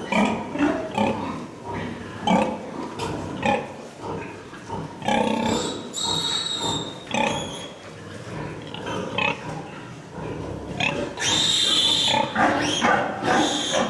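Pigs in a piggery grunting in many short bursts, with longer high-pitched squeals about five to seven seconds in and again near the end.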